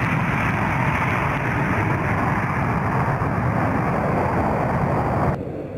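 F-16 fighter jet's single turbofan engine at takeoff power as the jet climbs away, a steady loud rushing noise. Near the end it drops suddenly to a quieter, duller rumble.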